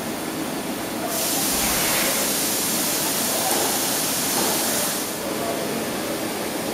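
Machine-shop background noise: a steady hiss and hum of machinery, with a louder high hiss from about a second in until about five seconds in.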